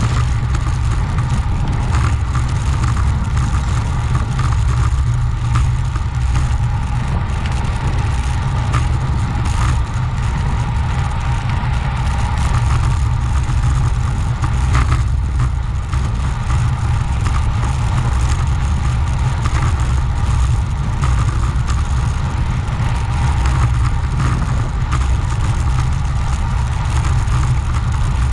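Steady wind rush and rolling road noise at speed, picked up by a camera microphone on a moving bicycle: a loud, even low rumble with a fainter hiss above it.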